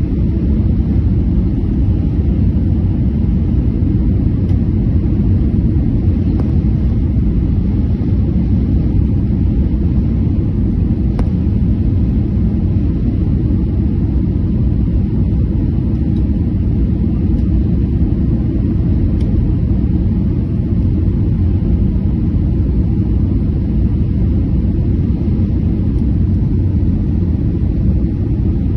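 Steady low rumble of an airliner's engines and airflow heard from inside the passenger cabin during descent.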